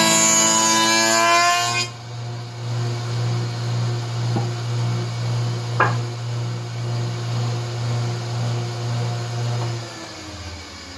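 Electric wood planer cutting a board with a loud whine for about the first two seconds. It then runs unloaded with a steady hum, with two short wooden knocks. Near the end it winds down, its pitch falling.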